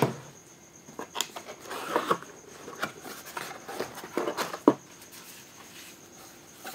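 Cardboard box and its contents being handled while items are unpacked: scraping, rustling and several sharp knocks, the sharpest about two-thirds of the way through, then quieter handling.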